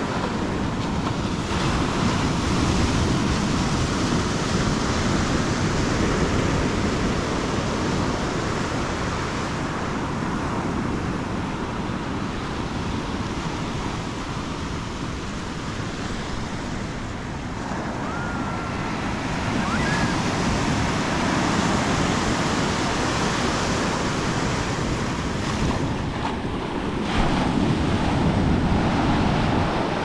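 Small ocean waves breaking and washing up a sandy beach: a steady rush of surf that swells and eases, louder near the end, with wind rumbling on the microphone.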